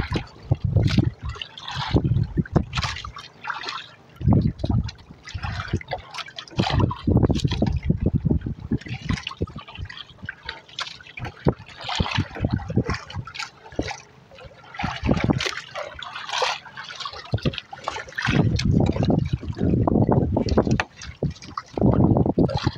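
Choppy seawater sloshing and slapping against the hull of a small wooden outrigger boat, in irregular splashes. A heavier low rumble comes near the end.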